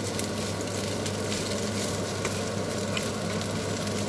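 Macaroni with minced meat and grated carrot sizzling steadily in a frying pan while being stirred with a wooden spatula, with a few light scrapes and clicks of the spatula against the pan.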